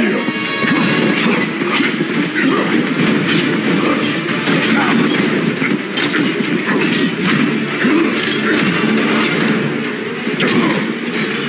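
Fight-scene soundtrack: music running under repeated hits, blows and crashes.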